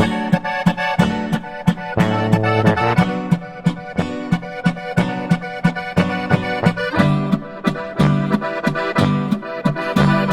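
Background music: an accordion melody over a steady beat.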